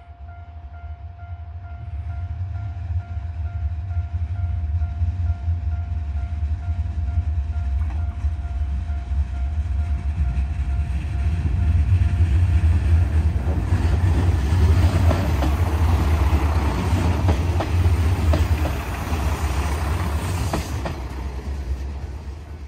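Shikoku Tosa 'Toki no Yoake no Monogatari' tourist train of KiHa 185-series diesel railcars approaching and passing a level crossing. A deep diesel rumble builds, and past the middle the wheels clatter over rail joints and the crossing as the cars go by. A level-crossing alarm rings with a steady tone over the first several seconds.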